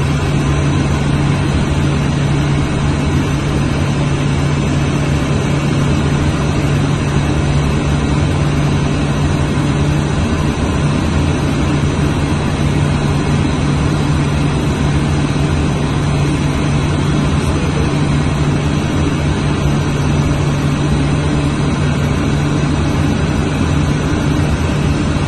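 Steady cockpit noise of a Cessna Citation M2 twin-turbofan business jet in flight: a constant low hum under a rushing of engine and airflow noise, unchanging throughout.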